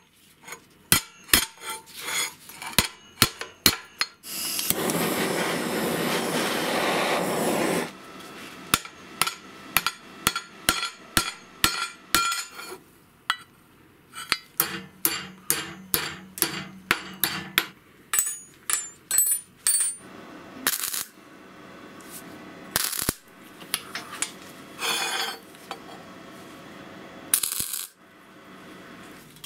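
Metal parts being worked by hand: repeated light taps, knocks and clinks of metal on metal, several a second at times. About five seconds in comes a steady rushing noise lasting some three seconds, louder than the taps.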